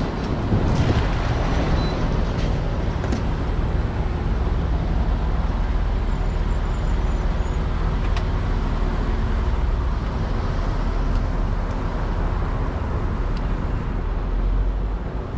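A car running, heard from inside its cabin: a steady low rumble with a faint, even engine hum.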